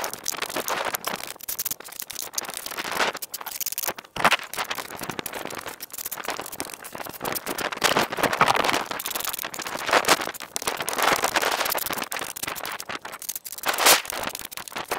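Steel trowel scraping and pressing wet cement into the gap between a door frame and the blockwork, in irregular rasping strokes with the odd sharp knock.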